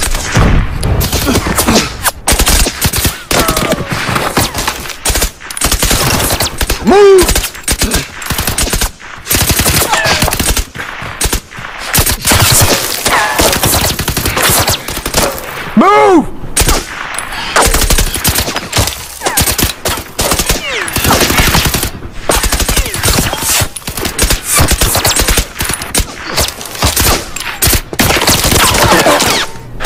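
Heavy gunfire: rapid, near-continuous shots with brief lulls.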